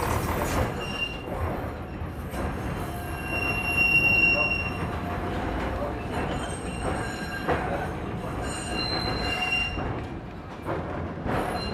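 1928 Canadian Car & Foundry streetcar running on steel rails, with thin high-pitched squeals from its wheels on the curving track, strongest about four seconds in and again near nine seconds, and a single knock about seven and a half seconds in.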